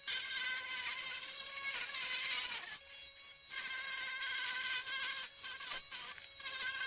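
Dremel-type rotary tool sanding rust and corrosion off a PlayStation 4's sheet-metal heatsink: a steady high whine with grinding hiss. It drops out briefly about three seconds in and again a few times near the end.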